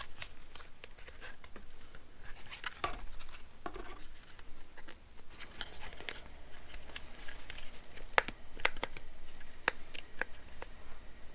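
Hands working a plastic backup-camera housing to release its clips: scattered clicks, taps and rustling of plastic, with a few sharper clicks late on.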